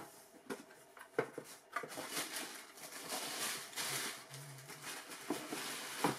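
Cardboard shoebox being opened, with a few light knocks of the lid and box, then the tissue paper inside crinkling and rustling as hands pull it open.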